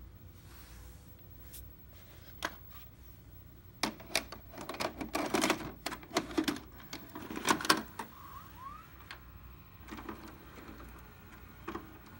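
Sanyo VWM-900 VCR taking in a VHS cassette: a run of clicks and clunks from the tape-loading mechanism, with a brief rising motor whine about eight seconds in, then a few fainter clicks.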